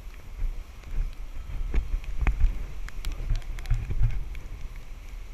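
Gusty storm wind buffeting the microphone in an uneven low rumble, with scattered light ticks.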